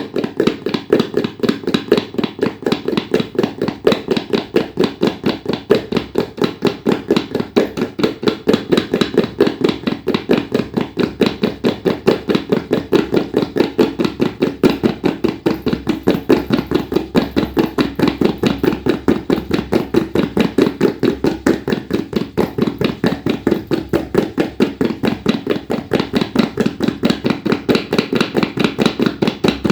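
Tabla played in a fast, even run of strokes that imitates the hoofbeats of a running horse.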